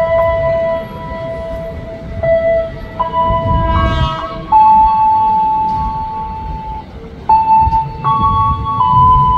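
A slow tune of sustained electronic tones, one note at a time, each held for one to two seconds and stepping up and down in pitch. A brief fuller chord and a low rumble come about four seconds in.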